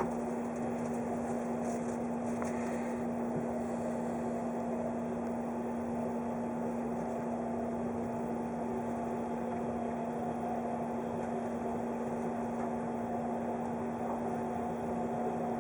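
Steady electrical hum inside a 583 series electric train carriage, holding one strong, constant low tone with a fainter higher tone above it.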